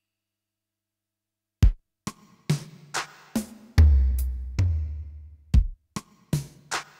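Yamaha PSR-E403 keyboard playing a built-in drum pattern from its own sounds. It starts about a second and a half in with sharp kick and snare hits, and a deep bass part joins a couple of seconds later.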